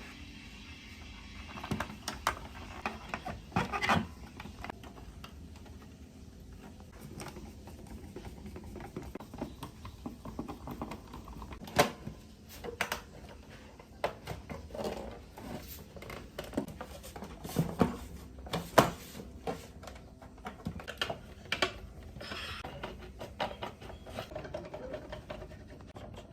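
Irregular clicks, taps and knocks of small hard objects being handled, at uneven intervals, with two louder knocks about halfway and about three quarters of the way through.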